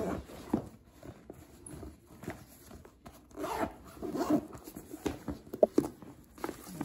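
Lacoste fabric backpack being handled and lifted out of a cardboard box: irregular rustling and rasping of fabric and zippers against the box, with a few sharp clicks about five and a half seconds in.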